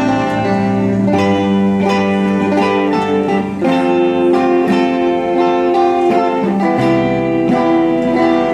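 Live band music with no singing: acoustic and electric guitars strummed in a steady rhythm, about two strums a second, over sustained chords from a string section.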